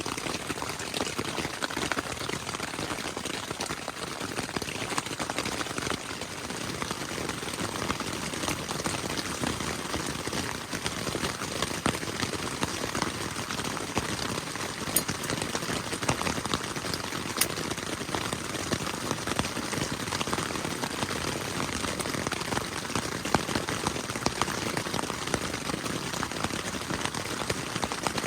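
Steady rain falling, a continuous hiss of drops with a few sharper drop hits about halfway through.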